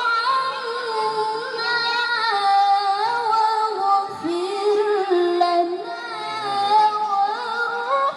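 Unaccompanied melodic chanting by one high voice in the style of Quran recitation, with long held notes and ornamented turns in pitch. There is a brief break for breath about four seconds in.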